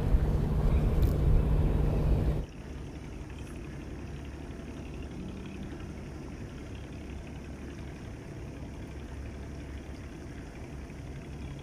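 Wind rumbling on the microphone with a few handling knocks, which cuts off abruptly about two seconds in. What follows is a steady, quieter low background rumble.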